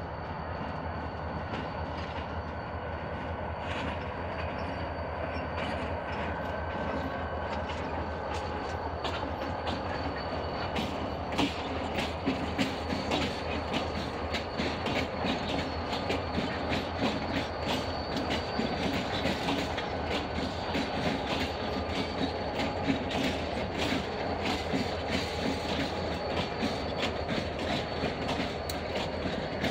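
A consist of Portland & Western Railroad diesel locomotives rolling past slowly, engines running steadily. Their wheels click over rail joints from about ten seconds in, and a faint high steady whine sits over the rumble. It grows louder as the locomotives draw near.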